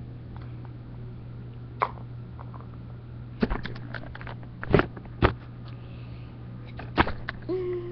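A handful of short, sharp clicks and knocks, spread out over several seconds, above a steady low hum.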